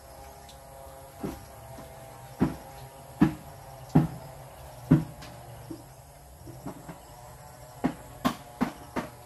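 Hard knocks from masonry work with concrete hollow blocks, over a steady low hum. There is about one knock every three-quarters of a second from about two seconds in, then a quicker run of four near the end.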